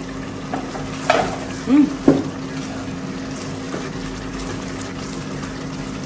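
Pepper and tomato stew frying in a pot, a steady sizzle under a steady low hum, with a couple of sharp utensil knocks about one and two seconds in.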